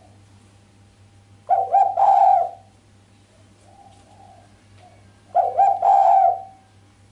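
Female spotted dove cooing: two sharp coo phrases about four seconds apart, each a couple of short notes running into a longer one, ending without the 'kuk' note. Fainter coos sound between them.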